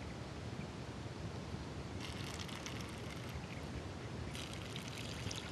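Quiet steady outdoor background hiss, with two hissy stretches of about a second each as red wine is slurped, air drawn through it in the mouth, for tasting.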